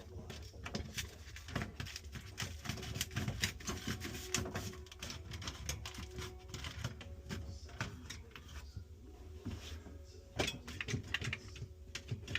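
Irregular light clicks and taps, as of parts being handled, over a steady low hum. The clicks thin out about nine seconds in, then a few louder ones come just after ten seconds.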